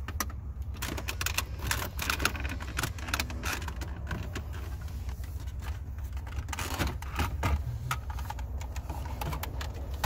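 Irregular plastic clicks, knocks and rattles as a Chrysler Crossfire's climate control panel is pried and pulled out of its dash opening by hand, over a low steady hum.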